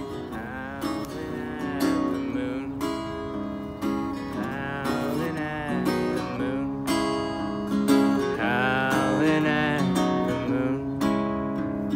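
Music: a guitar-led instrumental passage of a country-style song, with strummed chords under a lead melody whose notes waver and glide.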